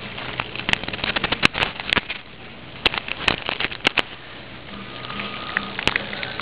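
Irregular sharp clicks and crackles over a low steady hum: handling noise of a Hot Wheels Video Racer toy camera car knocking and rubbing against an aquarium's glass and rim.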